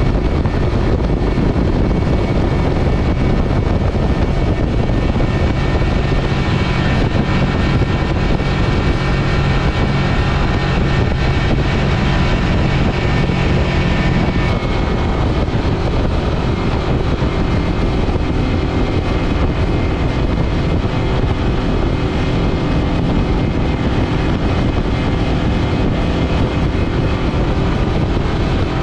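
Yamaha F225 V6 four-stroke outboard running steadily at high speed, around 5500 rpm, pushing the boat at about 48 mph. The engine note shifts slightly about halfway through.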